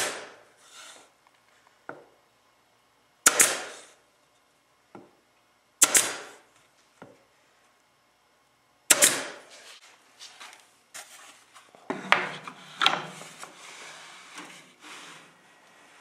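Four sharp knocks on wood about three seconds apart, each trailing off over about half a second. They are followed by a few seconds of lighter knocks and rubbing, as wooden pieces are handled.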